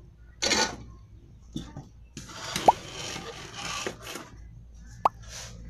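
Hands moving circuit boards, wires and the speaker's amplifier chassis on a workbench: a short rustle, a click, then about two seconds of scraping and rubbing. There are two short rising squeaks, one in the middle and one near the end.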